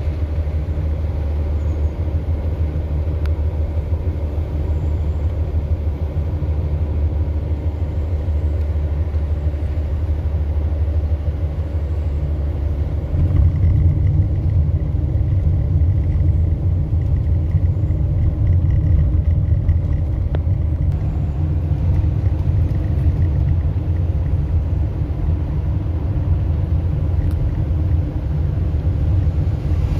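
Steady low rumble like a vehicle in motion, growing louder about thirteen seconds in.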